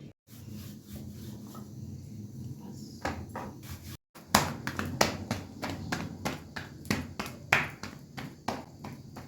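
Kitchen utensils and dishes knocking and clinking in irregular sharp hits, one or two a second, over a low steady background. The hits begin about three seconds in, after a brief cut.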